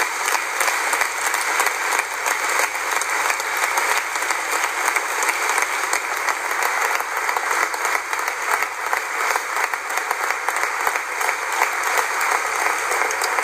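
A large congregation applauding steadily: dense, sustained clapping from many hands.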